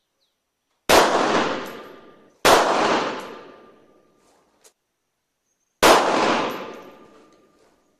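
Three .380 ACP handgun shots, the first two about a second and a half apart and the third about three seconds later, each followed by a long echoing tail.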